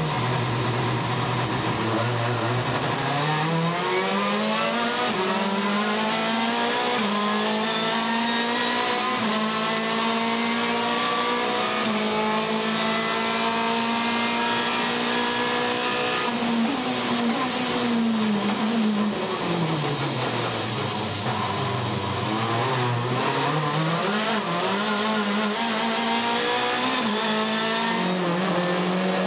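Racing touring car engines at full throttle, the pitch climbing and stepping through quick upshifts, then falling away about 16 seconds in as the cars brake and downshift, before rising again as they accelerate once more.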